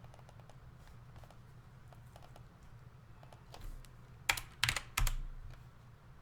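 Typing on a computer keyboard: a run of light keystrokes, with three much louder knocks a little past the middle.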